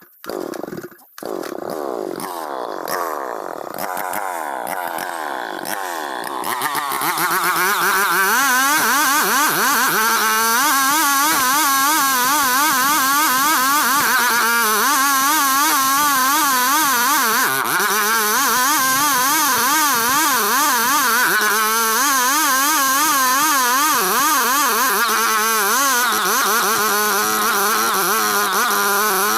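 Petrol engine of a new saw catching, revving up over the first few seconds, then running steadily at full throttle with a wavering pitch while sawing ulin ironwood.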